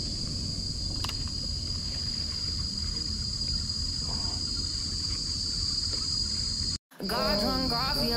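A steady, high-pitched chorus of insects over a low background rumble. The sound cuts out for a moment near the end, and background music with a melody begins.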